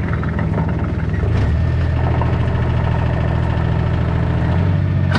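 Vehicle engine running steadily at low revs, a constant low hum.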